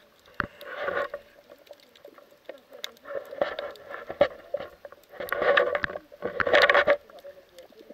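Muffled underwater sound picked up by an action camera held below the surface while snorkeling: four dull bursts, each under a second long, over a low steady hum.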